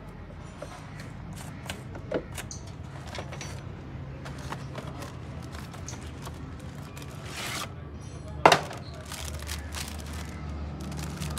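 Workshop handling sounds: scattered clicks and clinks of tools and car parts being handled, a rustle as a cardboard parts box is opened and unpacked, and one sharp knock about eight and a half seconds in, over a low steady hum.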